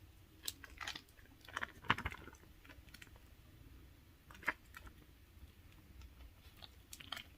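Faint, irregular clicks and crinkles of a serum-soaked sheet face mask being handled and pressed on, with a few louder ticks about two seconds in and again a couple of seconds later.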